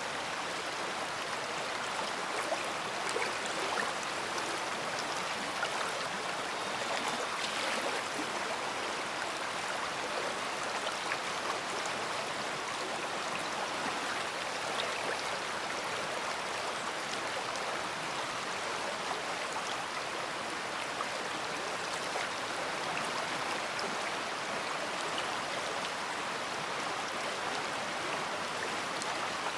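A large river flowing: steady rushing water, with small splashes and trickles coming through.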